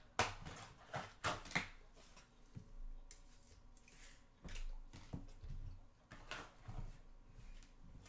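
Trading cards and plastic card holders being handled on a desk: several sharp clicks and rustles in the first two seconds, then softer scattered rustling as a stack of cards is gathered up.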